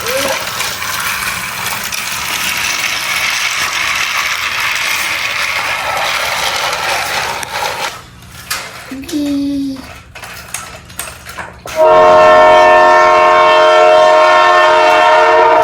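Thomas & Friends toy train playset: a steady rattling noise for about eight seconds, then a few clicks, then a loud, steady electronic train whistle held for almost four seconds near the end.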